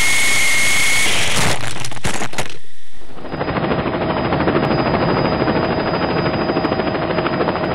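Electric motor and rotors of an Apache 9088 RC helicopter, heard through the action camera it carries: a steady high whine over rushing rotor wash, with a few sharp knocks about two seconds in. After a brief drop, a fast, evenly pulsing rattle takes over and runs to the end, an added sound effect tagged as machine-gun fire.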